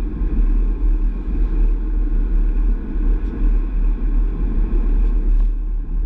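Steady low rumble of road and engine noise from an Astra Mk6 GTC driving at a constant pace.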